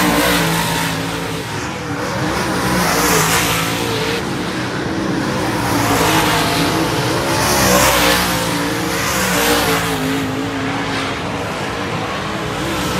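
Dirt-track modified race cars' V8 engines running hard around the oval, the sound swelling several times as cars pass close by one after another.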